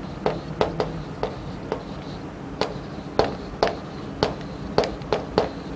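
Chalk tapping and scratching on a chalkboard as words are written: a string of short, sharp, irregular taps, about two a second.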